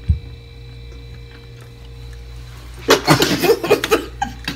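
A low steady room hum with a soft bump at the start, then about three seconds in a loud, breathy burst of non-speech vocal reaction lasting about a second, as the women react to the jelly beans they have just eaten.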